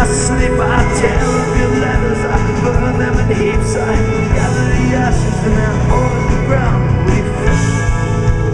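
Live rock band playing loud and continuously, with drums, electric guitar, keyboard and violin.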